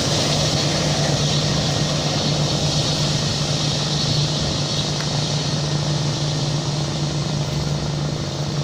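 Jet airliner's engines running, a steady rushing noise with a constant low hum underneath, fading slowly as the plane rolls away after landing.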